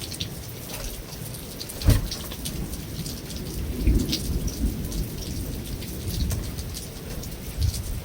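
Heavy rain falling on a metal roof, a dense patter of drop ticks over a steady hiss. There is one sharp, loud knock about two seconds in, and low rumbles swell around the middle and near the end.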